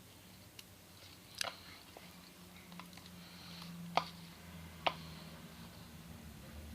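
Thick homemade slime being stirred in a bowl, giving scattered sharp, sticky clicks and pops, the loudest about four and five seconds in.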